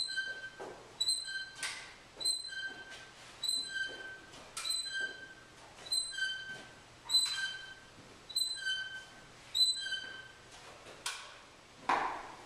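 Short sharp squeaks repeating about every two-thirds of a second, each a click with a brief high ringing tone. A louder, lower swishing sound comes near the end.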